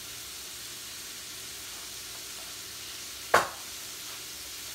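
Raw shrimp sizzling steadily in butter in a stainless steel frying pan, with one sharp knock about three and a half seconds in.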